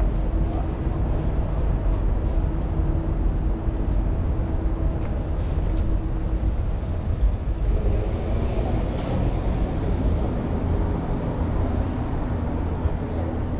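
Low rumble of a large vehicle's engine running close by, with a steady hum that changes about eight seconds in.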